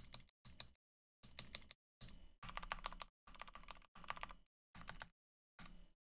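Typing on a mechanical keyboard (AKKO ACR 98 with lubed Gateron Black Ink V2 linear switches): short flurries of quick keystroke clacks, broken by brief silent gaps.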